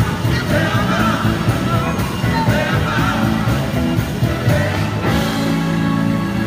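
Live soul band playing loudly through a concert PA, with electric guitars, drums and horns and a wavering lead line on top. About five seconds in, the drums drop away and the band holds a sustained chord.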